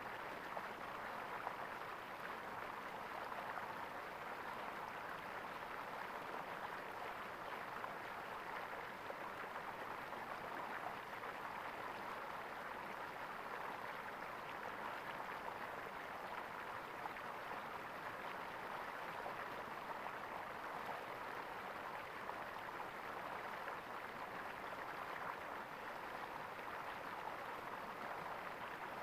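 A small stream of water gurgling and trickling over rocks in a steady, even flow.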